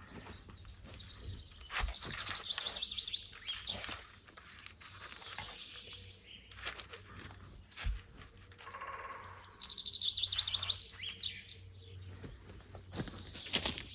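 Songbirds singing, with two rapid high trilled phrases, one a couple of seconds in and one past the middle, among other chirps. Scattered light clicks and two dull low thumps are heard.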